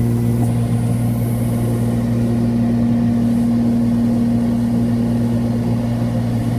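Engines and propellers of a twin Cessna 340 heard inside the cockpit in flight: the two turbocharged six-cylinder piston engines make a loud, steady drone with a strong low hum that does not change.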